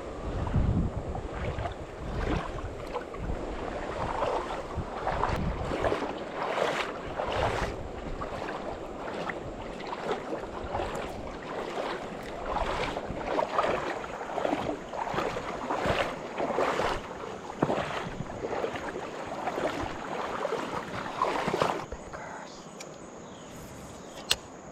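River water splashing and rushing in irregular surges, with wind buffeting the microphone. About three seconds before the end the water noise drops away, leaving a steady high chirring of insects and one sharp click.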